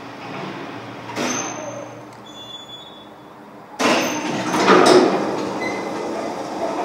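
Old passenger lift in a mesh-caged shaft starting to run, a sudden loud mechanical noise about four seconds in that carries on.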